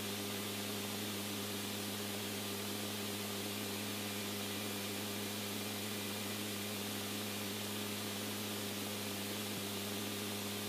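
Steady hiss with a low, even hum underneath, unchanging throughout: the background noise of an open radio channel between transmissions.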